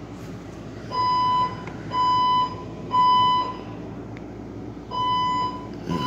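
Building fire alarm sounding a false alarm, beeping in the temporal-three evacuation pattern: three half-second beeps a second apart, a pause, then three more starting near the end.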